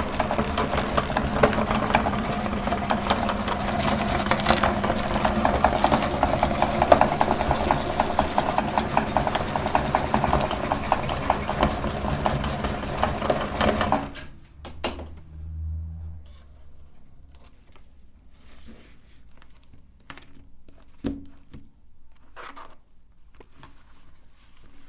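Electric meat grinder running with a steady motor hum and crackling as it grinds ice cream and candy, then switching off suddenly about two-thirds of the way through. Faint clicks and handling noises follow.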